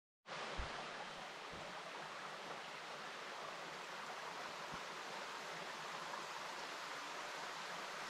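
Small mountain creek flowing: a steady rush of water, with a few soft low bumps in the first five seconds.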